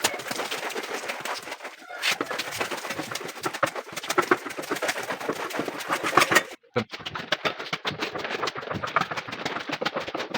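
A dense, rapid run of clicks and scrapes, broken twice by short gaps, the second cutting off to silence for a moment about two-thirds of the way through.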